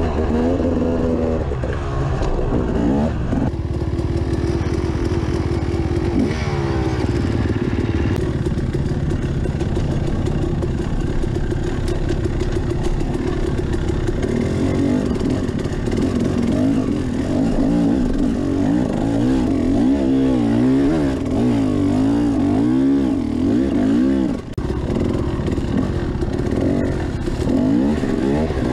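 Dirt bike engine under riding, its revs rising and falling again and again as the throttle opens and closes, heard close up from a helmet-mounted camera.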